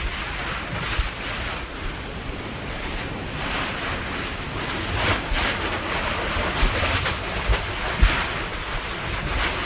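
Surf washing against the lava shore at a lava ocean entry, a steady rushing hiss with wind buffeting the microphone. A few short low thumps come in the second half, the loudest near the end.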